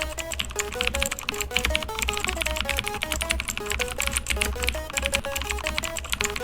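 Fast music with a quick melody of short, stepping notes over dense rapid clicking. It cuts off suddenly at the end.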